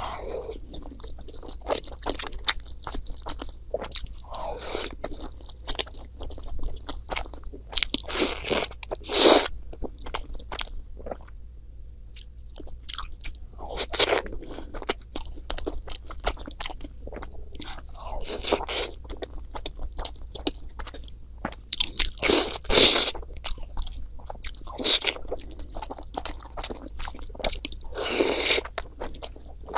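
Close-miked eating sounds: steady chewing with small wet mouth clicks, broken every few seconds by louder crunchy bites.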